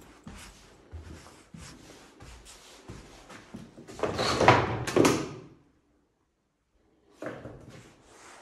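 Footsteps on a bare floor in an empty, echoing room, then about four seconds in a loud scraping clatter of an interior door being handled, lasting about a second and a half. The sound then cuts out completely for about a second and a half before the footsteps resume.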